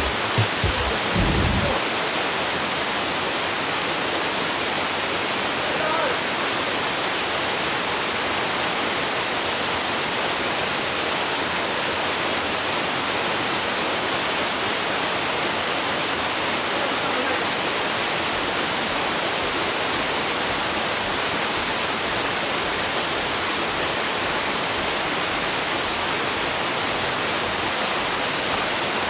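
Steady, unbroken rush of a waterfall pouring close by. There are a few low thumps in the first two seconds.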